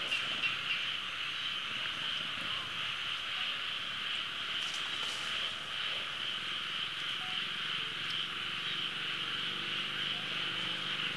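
Steady high-pitched insect chorus buzzing, pulsing rapidly for about the first second and then running as a continuous drone.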